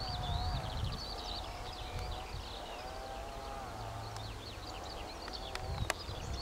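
Small birds chirping, with a wavering lower call repeating every second or so over a low rumble. A few sharp clicks near the end.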